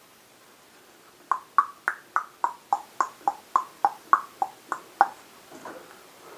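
Rubber dead blow hammer tapping a motorcycle's front axle through the wheel hub: a quick, even run of about fourteen knocks, each with a short ring.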